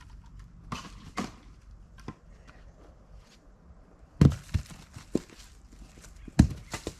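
Heavy wooden thuds and knocks with the saw silent: a few light ones early, then louder ones from about four seconds in. They are cut firewood rounds being dropped and knocked together.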